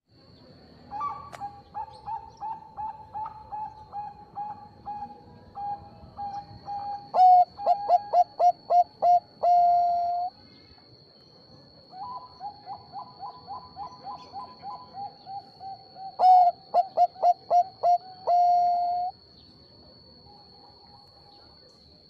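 Bangkok-strain zebra dove (perkutut) singing two song phrases. Each starts with a quick run of short coos, breaks into louder stuttering notes and ends on a long held coo. A faint steady high whine runs underneath.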